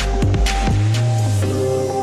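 Electronic background music: steady synth notes over a deep bass with a beat about twice a second, the beat dropping out about a second in, leaving a sliding bass note.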